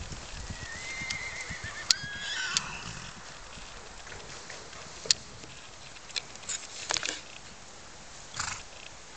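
A horse whinnying: a high, wavering call in the first three seconds, with shorter, fainter sounds later. Two sharp clicks stand out, about two and five seconds in.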